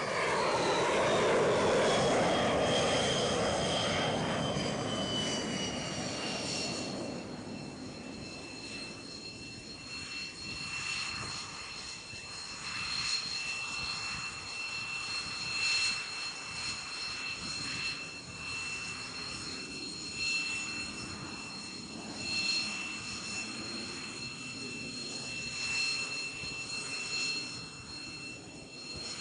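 X-47B drone's turbofan engine spooling down on the carrier deck: the roar fades and the whine drops in pitch over the first several seconds, then settles into a steady high-pitched idle whine with small swells in level.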